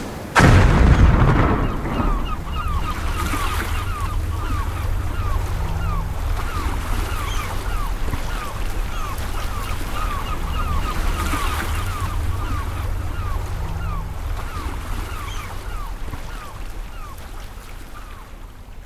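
Ambient soundtrack of a steady low rumble with a rapid string of short falling chirps, several a second, fading out near the end.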